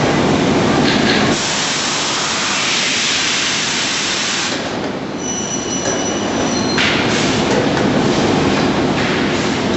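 Automatic panel-loading line of an SCM Sergiani LAS 230 door press running: steady machine noise with long stretches of loud hiss. A few thin steady whistling tones sound about halfway through.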